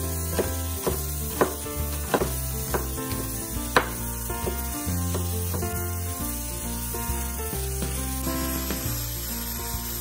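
A cleaver chopping a red onion on a wooden cutting board: sharp knocks about twice a second, thinning out and growing fainter after about four seconds. Background music plays throughout.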